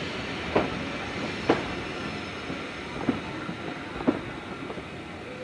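Railway passenger coaches rolling slowly past, a steady rumble of wheels on the rails with four sharp clacks as wheels cross rail joints, fading as the last coach moves away.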